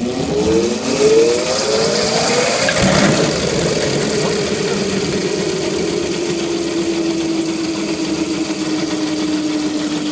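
Electric motor switched on, driving a 105-pound flywheel: its whine climbs in pitch for about three seconds, then holds and slowly sinks as it strains under the load. The motor cannot handle the 105-pound flywheel on its own.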